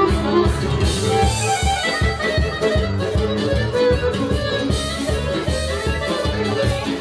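Serbian kolo folk dance music led by accordion, with a quick, steady beat.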